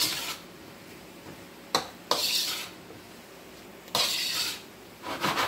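A slotted spatula scraping and tossing vegetables around a nonstick wok in short strokes, one every second or two. Between the strokes a faint steady sizzle of the hot pan can be heard.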